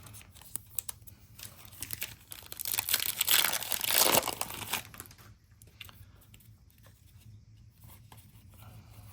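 A trading-card pack's plastic foil wrapper being torn open and crinkled, loudest about three to four and a half seconds in, followed by lighter rustling and clicks of the cards being handled.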